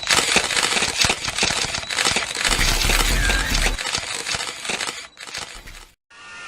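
A dense clatter of crashing, breaking and clinking sound effects, with many sharp clicks, thinning out after about four seconds and dying away just before the end.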